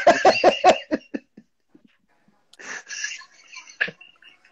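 A man's hearty laughter in quick rhythmic bursts that trails off after about a second, followed by breathy, cough-like exhalations with one sharper cough-like burst near the end.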